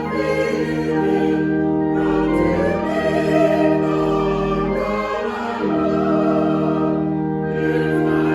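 Choral music: voices singing slow, long-held chords.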